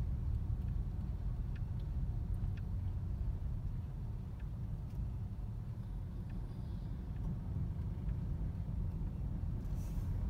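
Steady low rumble of a car's engine and tyres heard from inside the cabin as the car moves slowly through traffic, with a few faint clicks.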